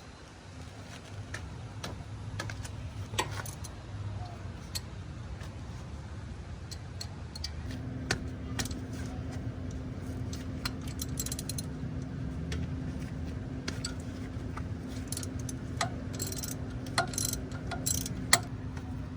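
Metal hand tools clinking and tapping against a car's front brake caliper as its bolts are loosened, in scattered clicks that bunch up near the end. A steady low hum comes in about eight seconds in.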